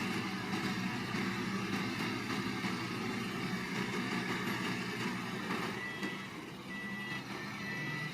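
Bulldozer's diesel engine running steadily. About six seconds in, its reversing alarm starts, beeping about once a second as the machine backs up.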